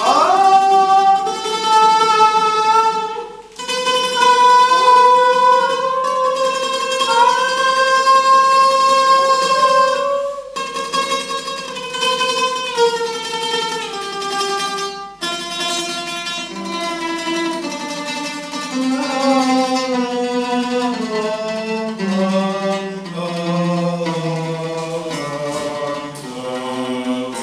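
A man sings to his own oud, the plucked strings sounding under his voice. He slides quickly up into long high held notes, then from about halfway through steps down note by note into the low end of his voice, rising again near the end: a vocal range exercise.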